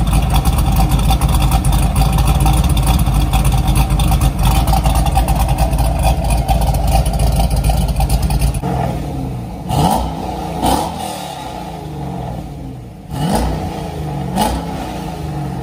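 C5 Corvette's V8 running through its quad-tip exhaust, loud for about eight and a half seconds, then settling lower with four quick throttle blips. It is down one cylinder from an injector connector with a pulled pin, a sound the owner calls real nasty.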